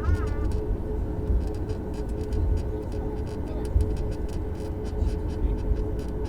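Steady low rumble of a Boeing 737 MAX airliner with a steady hum running through it, and light clicking rattles.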